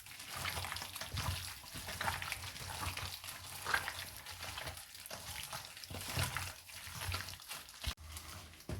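Hands mixing and massaging raw chicken pieces in a thick yogurt and spice marinade, giving irregular wet squelching and sloshing sounds.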